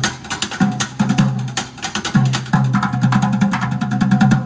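Upbeat percussion music from a pots-and-pans drumming act: rapid, dense strikes over a steady bass line.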